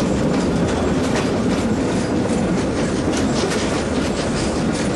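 Steam-hauled passenger train's carriages rolling along the track: a steady loud rumble, with the wheels clicking over the rail joints.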